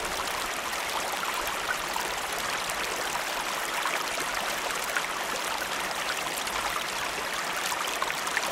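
Shallow river water flowing over stones: a steady rushing babble with many small splashes and crackles.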